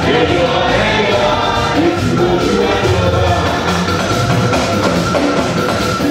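Church music with singing and a steady drum beat.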